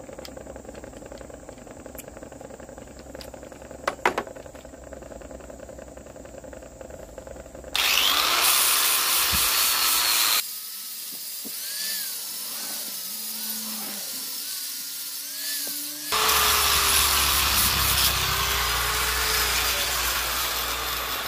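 Electric angle grinder with an 80-grit flap disc switching on about eight seconds in and sanding a metal boat propeller blade, a loud hissing grind that drops to a quieter, wavering whine in the middle before going loud again. Before it starts there are only a few sharp clicks as the disc is fitted.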